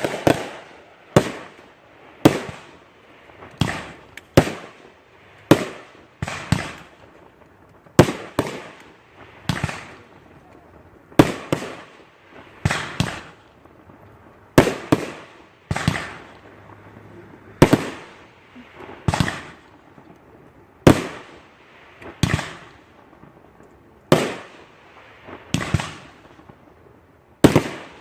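Fireworks going off in a steady run of sharp bangs, about one a second, each followed by a rolling echo. Some bangs come in quick pairs.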